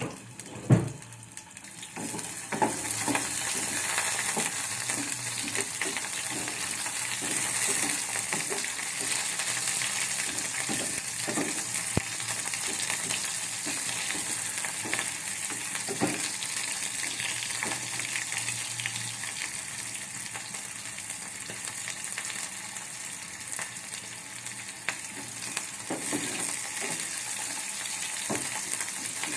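Chopped onions sizzling steadily in hot oil in a pan as they sauté, the sizzle swelling about two seconds in, with a few knocks of a spoon against the pan as they are stirred.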